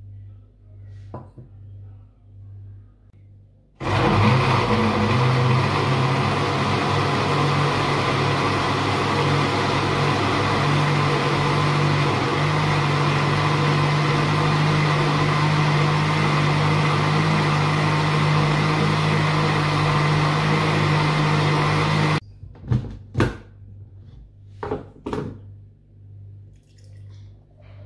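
Elekta countertop blender blending chikoo and milk: the motor starts about four seconds in, its pitch creeps up a little over the next several seconds, then runs steady before cutting off abruptly. A few short knocks follow.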